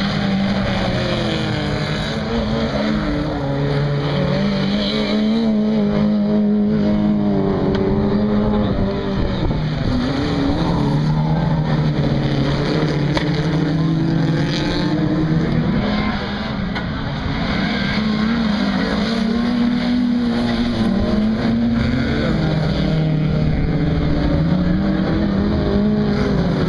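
Race car engines on a dirt track, revving up and down over and over as the cars accelerate and lift through the corners, with more than one engine heard at once at times.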